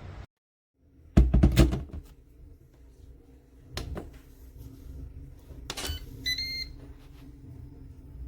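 Electric kettle being handled: a loud burst of knocks about a second in and a few single clicks, then a short electronic beep from its control panel about six seconds in.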